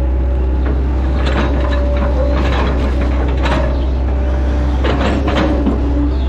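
Hitachi Zaxis 110 excavator's diesel engine running steadily under load, heard from inside the cab, with a steady hydraulic whine. Several short hisses come as the hydraulics swing the arm and work the bucket.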